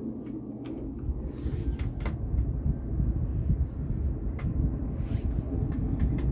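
Small 10-inch plastic box fan running on its low speed, spinning up: a steady low rush of air that builds over the first second or two and then holds even, with a few light clicks.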